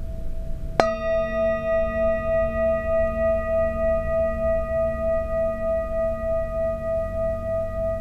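A large metal singing bowl is struck once with a wooden mallet about a second in and rings on in several steady tones with a regular wavering pulse. It was already humming from an earlier strike.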